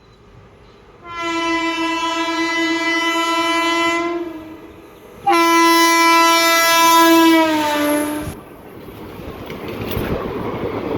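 Indian Railways locomotive horn sounding two long blasts, the second dropping in pitch as the locomotive passes at speed, followed by the rising rush and wheel clatter of the train going by.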